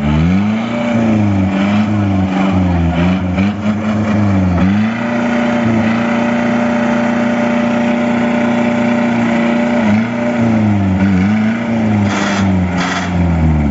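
Mahindra jeep engine revving up and down under load, then held at steady high revs for about five seconds before rising and falling again, as the jeep strains while stuck and tilted on two wheels on a steep mud slope.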